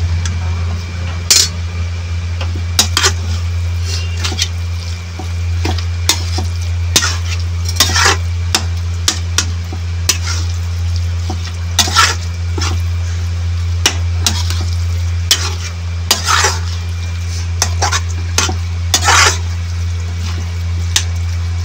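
A spatula scraping and knocking against a pan in irregular strokes as crumbled paneer is stirred into the frying masala, over a sizzle of frying. A steady low hum runs underneath.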